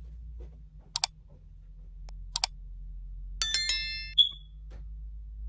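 Edited-in sound effects for a like-and-subscribe button animation: a pair of clicks about a second in, a second pair a little over a second later, then a bright bell chime and a short high ding, over a low steady hum.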